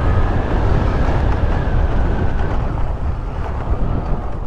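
Motorcycle running while being ridden over a rough dirt track, heard as a loud, steady rumble mixed with wind buffeting the microphone.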